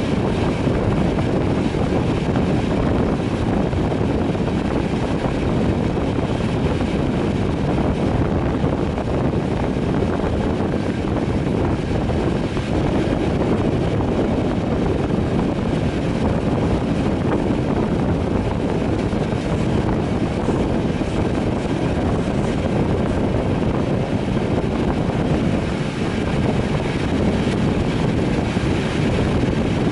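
Moving passenger train heard from an open carriage window: a steady rush of running noise and wind buffeting the microphone.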